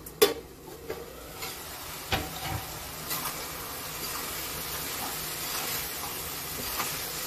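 A steel plate lid clinks sharply as it comes off a kadai, then chicken pieces sizzle in oil and their own juices, with no water added, while a metal spoon stirs and knocks against the pan. The sizzle grows louder from about a second and a half in.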